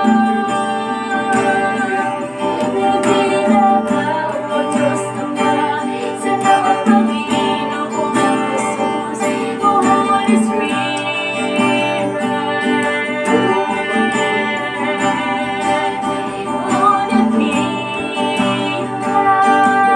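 Acoustic guitar strummed to accompany a man and a woman singing together.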